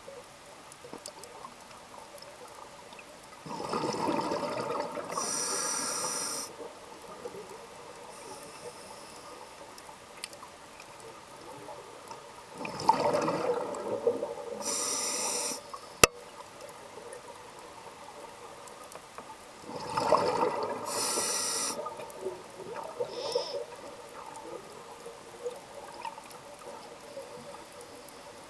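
Scuba diver's regulator breathing underwater, heard through the camera housing: three breaths about eight seconds apart, each a burst of bubbling with a high hiss. One sharp click about halfway through.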